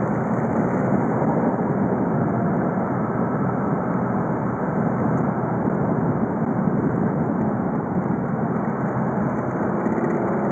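VW Golf Mk5 2.0 TDI's four-cylinder turbodiesel running at a steady, even load under way, with its drone mixed into road noise and no clear rise or fall in revs.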